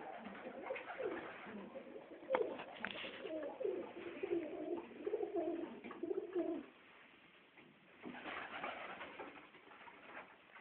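Budapest Highflyer pigeons cooing, several low, wavering coos overlapping for the first six or seven seconds. A sharp click comes about two and a half seconds in, and a burst of noise comes about eight seconds in.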